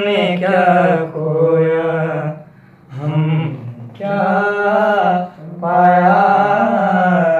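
A man singing a ghazal in long, held phrases with a wavering pitch, pausing briefly for breath between phrases.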